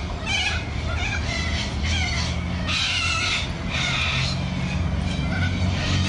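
Little corellas screeching, a run of harsh calls about one every half second to second, the longest and loudest near the middle, over a steady low hum.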